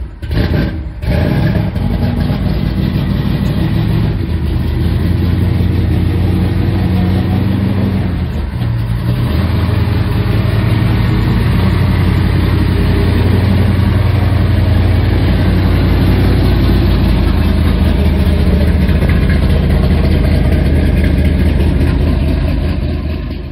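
Exhaust of a 1968 Camaro SS496's 496-cubic-inch big-block V8: a few short throttle blips in the first second, then running steadily with a deep, low note, with a brief dip about eight seconds in.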